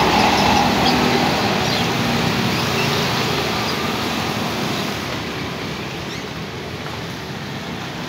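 Traffic passing on a rain-wet road: a bus engine's hum dies away in the first second as it pulls off, leaving motorcycle engines and tyre hiss on the wet asphalt that fade gradually.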